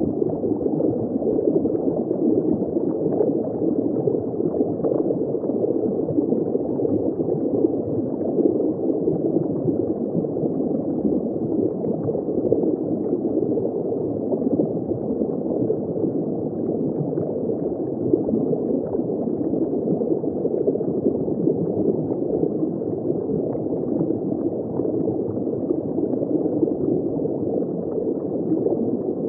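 Steady underwater water ambience: a continuous, dull wash of moving water with no breaks and no distinct animal calls.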